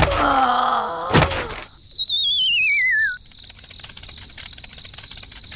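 Cartoon-style sound effects: a short wailing pitched sound, a thunk about a second in, then a loud falling whistle with a wavering vibrato that sweeps down in pitch for about a second and a half. It gives way to faint, steady cricket chirring.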